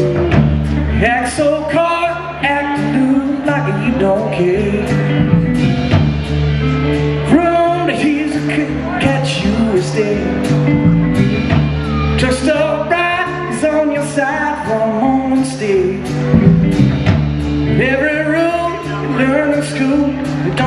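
Live blues-rock band playing: electric guitars, bass guitar, drums and keyboards, with singing over a steady beat.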